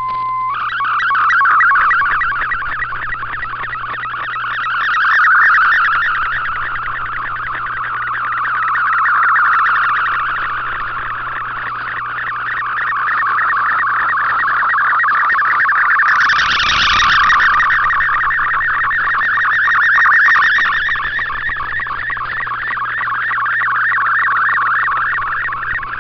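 MFSK64 digital picture transmission received on a shortwave receiver: a dense warbling data signal filling a band around 1–2 kHz, swelling and fading every few seconds, over a steady low hum. It opens with a short steady tone, the picture's lead-in, and a brief noisy burst cuts through about two-thirds of the way in.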